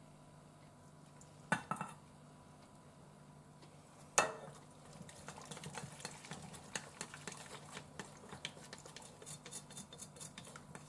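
Wooden chopsticks stirring flour-and-water batter in a stainless steel bowl, with many small light ticks against the metal through the second half. A sharp click about a second and a half in and a louder knock about four seconds in.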